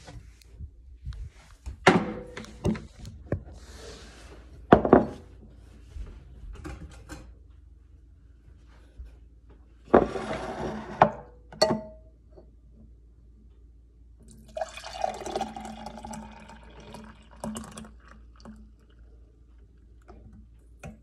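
A metal saucepan and a drinking glass being handled on a counter, with several sharp knocks and clunks. There are also stretches of a milky drink being poured from the saucepan into the glass.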